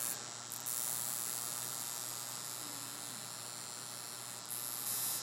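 Steady low electrical hum under an even hiss: room tone with mains hum.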